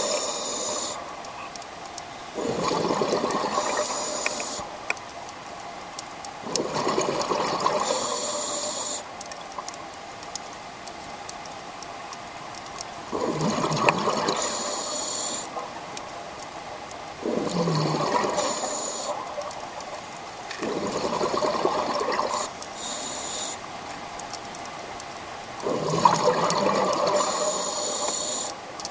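A scuba diver breathing through a regulator underwater. The exhaled bubbles rush out in bursts of about two seconds, roughly every four seconds, each with a high hiss.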